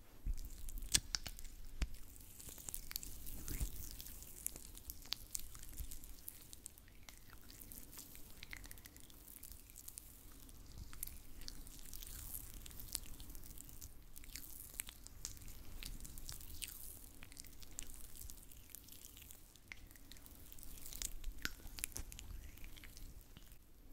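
Hands slick with massage oil rubbing close to the microphone: a steady stream of small wet, sticky clicks and squelches.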